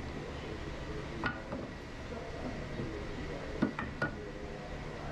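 Steady indoor background hum with a few short, light clinks and knocks: one about a second in and three close together near the end.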